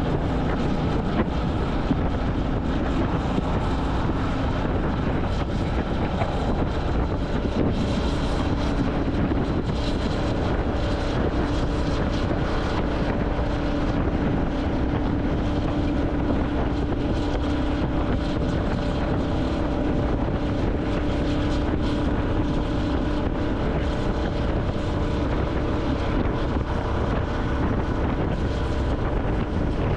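Royal Enfield Classic 350's single-cylinder engine running steadily under way, with wind buffeting the microphone. Its note rises slightly about eight seconds in and then holds.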